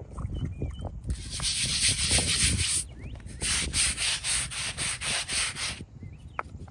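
Stiff-bristle hand scrub brush scrubbing the stone face of a headstone: a steady scrubbing hiss for about two seconds, then quick back-and-forth strokes about four a second, stopping shortly before the end.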